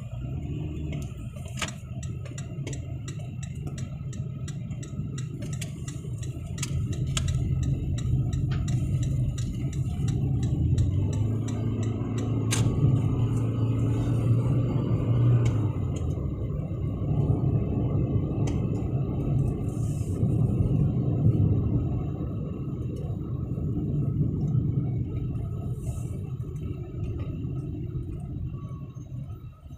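Inside a taxi cabin: steady low rumble of the car's engine and road noise while driving, growing louder in the middle and easing off near the end. A run of faint light ticks sounds over the first several seconds.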